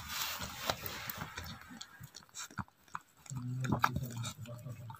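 Wet clicking and smacking sounds from a Japanese Spitz–Shih Tzu cross in labour as a puppy is delivered, with a low, steady moan-like hum lasting about a second past the middle.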